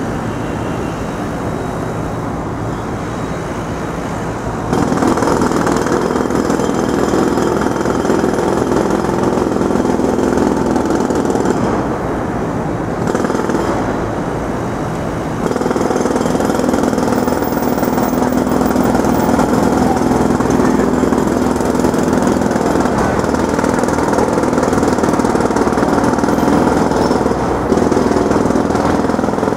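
Construction site noise: a jackhammer pounding rapidly and continuously. It gets louder about five seconds in, eases for a few seconds around the middle, then picks up again.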